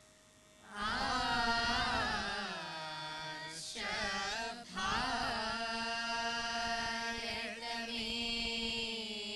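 A mixed group of boys and girls singing a patriotic group song (deshabhakthi ganam) together on long, held notes. The voices come in about a second in after a short pause and break off briefly near the middle.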